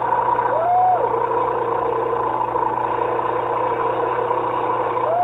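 A 150cc go-kart engine running steadily at idle. A short whistle rises and falls about half a second in, and again at the end.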